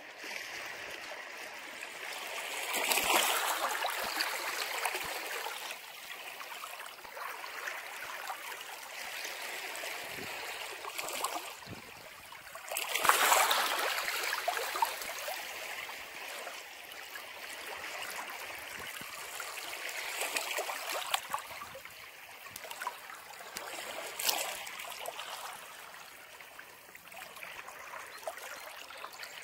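Ocean waves washing ashore in a steady hiss that swells and ebbs, the biggest surges breaking about three seconds and thirteen seconds in.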